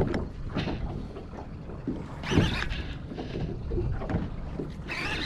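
Wind rumbling on the microphone over water lapping at a small boat, with a few short louder rushes of noise, the loudest about two seconds in.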